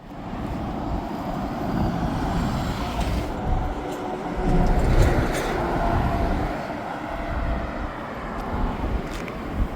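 Steady rush of road traffic passing along a suspension bridge's carriageway, with a deep rumble that swells and eases as vehicles go by.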